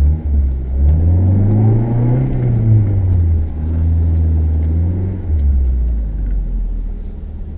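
Car engine accelerating, heard from inside the cabin: its pitch rises for a second or so, falls away, then holds steady and drops again about five seconds in.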